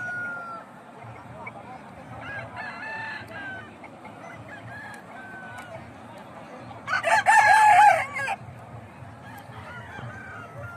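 A rooster crows once, loudly, about seven seconds in, its call lasting about a second and a half. Fainter calls are heard in the background.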